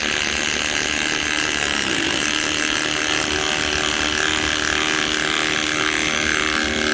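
Milwaukee cordless impact driver hammering continuously as it drives a 1/2-inch lag bolt into a tree, a job it is not meant for but handles under heavy load.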